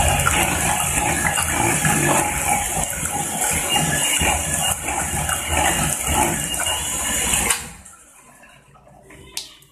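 Electric mixer running at speed as it blends sweet potato pie filling, then switched off abruptly about seven and a half seconds in. A couple of light knocks follow near the end.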